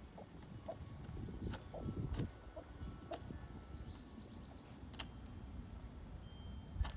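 Broody Buff Orpington hen in a nesting box, making a few short, soft clucks, with scattered sharp clicks and faint rustling.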